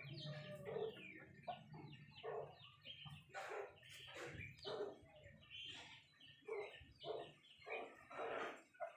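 Chickens clucking, with a busy stream of short, high chirps that drop in pitch and overlap one another.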